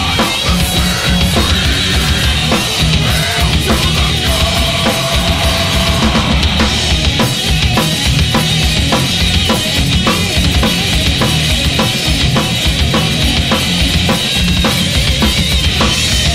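Heavy metal band playing live at full volume: distorted electric guitars over bass and a drum kit keeping a steady beat.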